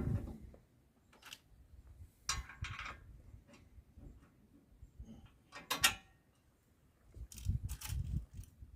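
Scattered metal clinks and knocks from bolts and hand tools as the log splitter's support legs are bolted back on. Two brighter, briefly ringing clinks come about two and a half seconds and six seconds in, with duller knocks near the end.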